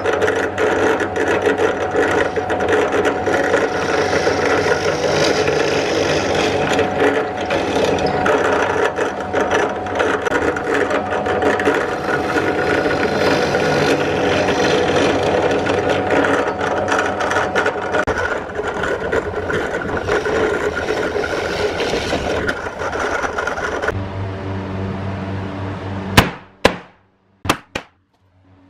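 Drill press running and boring holes through plywood, with a steady motor hum under the cutting noise; the cutting stops and only the hum runs for a couple of seconds. Near the end a hammer strikes metal T-nuts into the plywood, four or five sharp blows.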